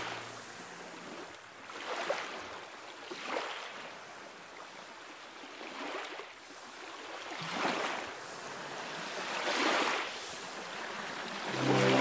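Sea waves washing in and drawing back, a hiss that swells and falls away every two seconds or so. Soft music fades out at the start and comes back near the end.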